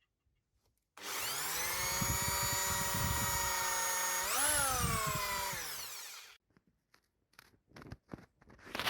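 An electric power tool's motor switched on, running with a steady whine; it speeds up briefly in the middle, then winds down to a stop. A few light clicks and knocks follow.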